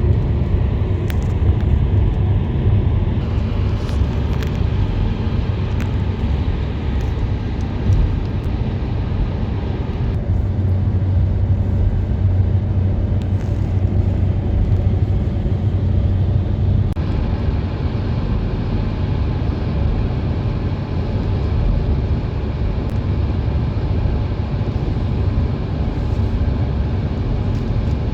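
Road noise inside a moving car's cabin: a steady low rumble of engine and tyres under a hiss that shifts a few times.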